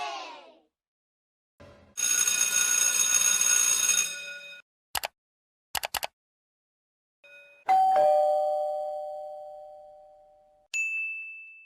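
A string of short sound effects. First comes a ringing sound with hiss for about two seconds, then a few quick clicks. Then a two-note ding-dong doorbell chime, high then low, fades away slowly, and a brief high ding sounds near the end.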